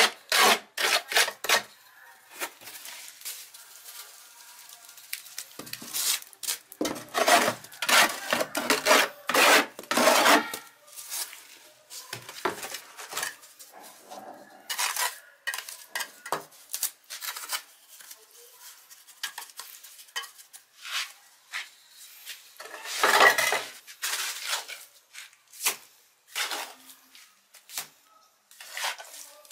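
Metal pieces clattering, clanking and scraping in irregular bursts, as when stove parts are handled and worked. The clatter is densest from about six to ten seconds in, with a loud burst around twenty-three seconds.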